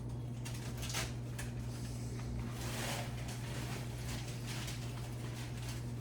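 Small clicks and a brief rustle of food and utensils being handled while tacos are put together, over a steady low electrical hum.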